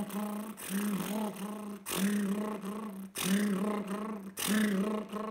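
Lips buzzing without the didgeridoo, with the voice sounded along, in a buzzy drone articulated into the te-wa-ka rhythm. It comes as about four short phrases with brief breaks between them, the tone of each changing as it moves through te, wa and ka.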